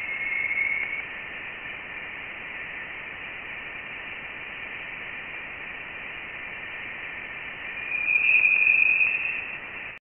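Voyager 1 plasma wave instrument's recording of interstellar plasma oscillations, played back as sound: a steady hiss with a whistling tone in the first second and a louder, higher tone about eight seconds in that lasts about a second and a half. The tone's pitch marks the plasma's density, so the higher second tone means denser plasma.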